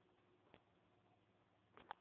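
Near silence: faint room tone with one faint click about half a second in and two quick faint clicks near the end.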